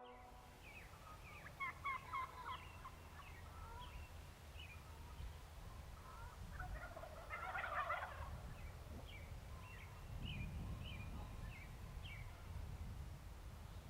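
A wild Merriam's turkey gobbler gobbling once, a rapid rattling call about halfway through, with short faint bird chirps before and after it.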